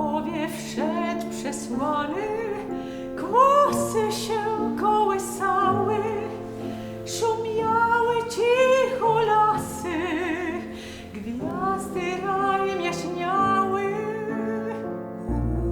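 Music: a voice singing a slow melody with vibrato over sustained accompaniment.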